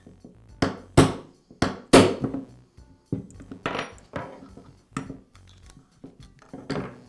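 Hammer tapping a steel pin punch to drive a pin out of a Makita reciprocating saw's aluminium gear housing: four sharp metallic strikes in the first two seconds, the loudest about two seconds in. Lighter clinks and knocks follow as the tools are set down on the bench.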